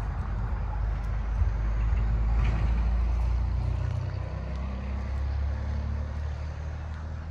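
A motor vehicle on the road, its low engine rumble growing louder to a peak about two to three seconds in and then fading as it passes.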